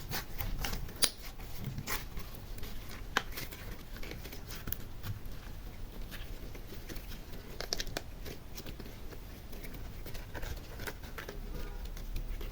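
Slime being worked by hand: a steady run of small sticky clicks and crackles, with a few sharper clicks, about one second in and about three seconds in.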